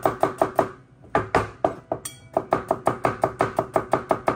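Kitchen knife chopping shallots on a plastic cutting board in quick, even strokes, about five a second, with two short pauses.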